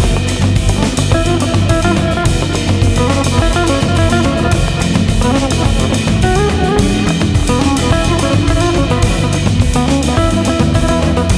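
Background music with a steady drum-kit beat and guitar.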